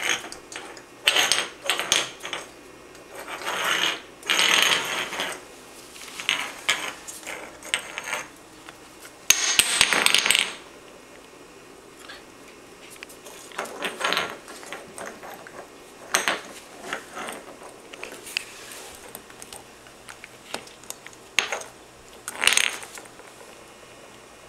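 Yorkshire Terrier mix puppy making a run of short, raspy, rattly noises in irregular bursts, the longest and loudest about ten seconds in.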